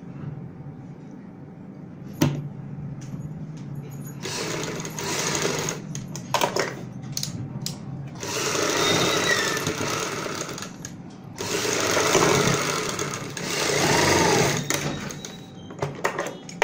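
Sewing machine stitching through fabric and buckram in several runs of a few seconds each, stopping briefly between them, with a sharp click about two seconds in.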